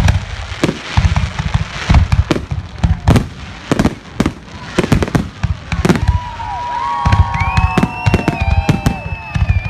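Fireworks display: a rapid barrage of sharp bangs, several a second. From about six seconds in, high sustained whistling tones that glide down at their ends ring over the bangs.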